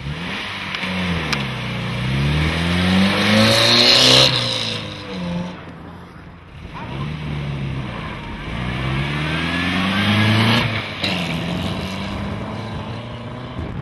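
Rally vehicles' engines passing close by at speed, twice. Each time the engine note climbs as the vehicle approaches and drops away as it passes, loudest about four seconds in and again about ten seconds in.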